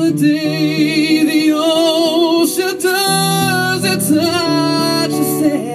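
A man singing a slow song in long held notes with vibrato, over strummed acoustic guitar chords.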